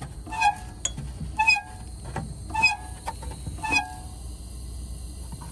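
Air leaking from a semi truck's air-actuated fan clutch: a short whistle that comes round about once a second as the fan hub turns, four times, then stops about four seconds in, over the steady low hum of the running engine. The leak is bad enough that the clutch stays stuck engaged and its front piece needs replacing.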